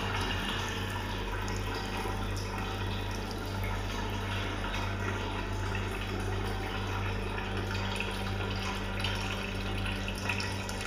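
Water running steadily, with a steady low hum underneath.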